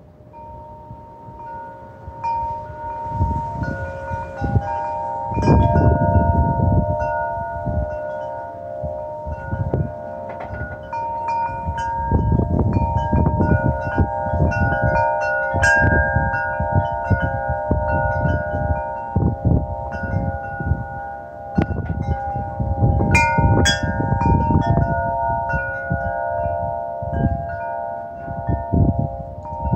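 Wind chimes ringing in gusty wind, several overlapping tones struck again and again and ringing on, over the low rumble of wind gusts that swell and fade.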